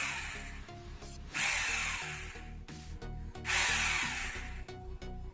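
Foster FHD 2-26 rotary hammer drill, an 850-watt corded machine, run in two short bursts as its bit goes into a wooden log. Each burst starts sharply and dies away over about a second.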